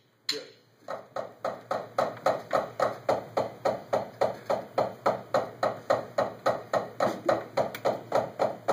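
Two drummers playing a rudimental warm-up in unison with drumsticks on practice pads. A single stick click starts it, then come even strikes about four a second, softer at first and louder and steady from about two seconds in.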